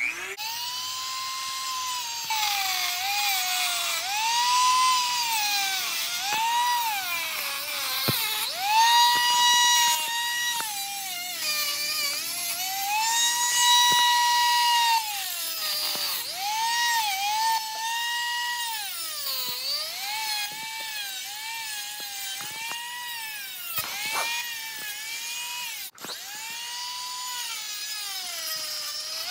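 Handheld rotary tool with a cutoff disc running at high speed, a steady high whine whose pitch sags again and again as the disc bites into the workpiece and climbs back as it frees.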